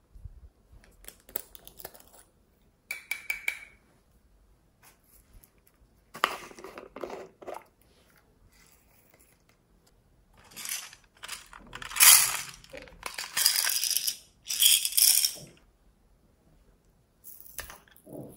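Small plastic toy containers being handled and clicked open, with sprinkles and beads rattling and pouring into a glass bowl. It comes in short, separate bursts, the loudest a few seconds of rattling just past the middle.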